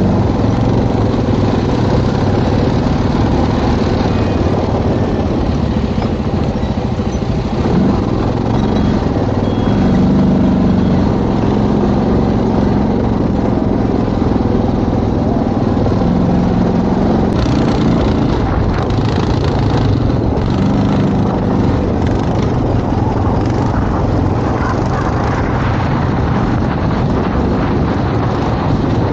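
ATV engine running under way, its pitch rising and falling a few times with the throttle, with rattling and ride noise picking up over the second half.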